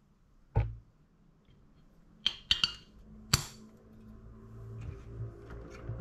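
Stainless steel bar jigger and glassware being handled on a countertop: a dull knock about half a second in, then a quick run of four sharp metallic clinks, followed by faint handling noise.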